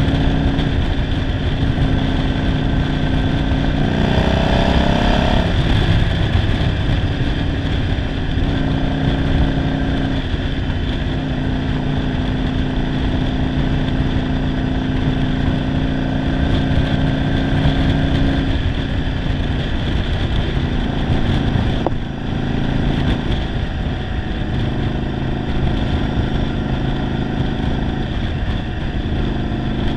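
Yamaha Virago 750 V-twin engine pulling the bike along at road speed, with wind rushing over the microphone. The revs climb briefly about four seconds in, then drop to a lower, steady note for the last third. The owner says this single-carb-converted engine runs poorly.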